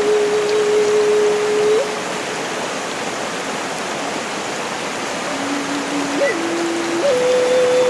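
Mountain stream rushing over boulders, a steady hiss of water. Over it runs a slow melody of long held single notes, which falls silent for about three seconds in the middle and comes back near the end.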